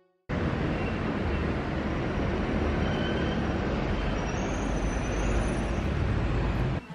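Steady rumble and rush of a train in motion, with a few faint high squeals partway through. It starts abruptly just after the start and cuts off shortly before the end.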